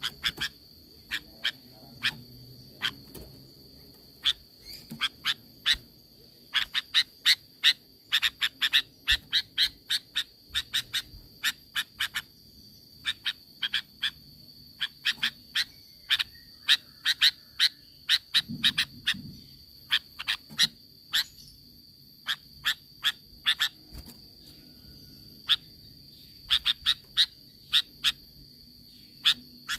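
Sooty-headed bulbul (kutilang) calling in rapid runs of short, sharp notes, several a second, with brief pauses between runs. A steady high-pitched tone lies underneath.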